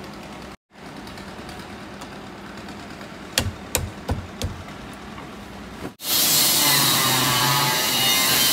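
Four or five sharp knocks in quick succession, like light hammer taps on a part, then a loud steady hiss that starts abruptly about six seconds in.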